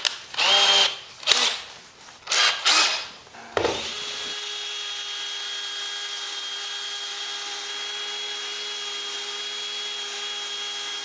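DeWalt cordless drill spinning a foam-backed contour sanding pad against the inside of a wooden spoon bowl. It gives a few short spurts at first, then runs steadily at an even pitch from about four seconds in.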